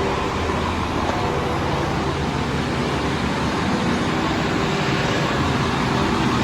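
Fire department ladder truck's engine running amid steady street traffic noise.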